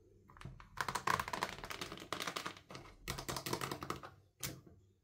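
Plastic toy packaging crinkling and crackling in the hands in two spells of dense clicks, then one sharp click near the end.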